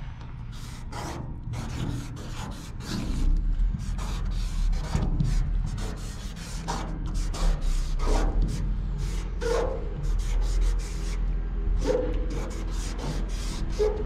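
Wide-nibbed marker rubbing and scraping across a painted metal door as a tag is written, in a rapid, irregular series of short strokes.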